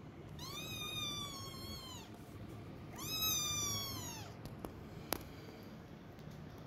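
Kitten meowing: two long, high calls, each rising, holding and then falling away, the second louder. A couple of faint sharp clicks follow near the end.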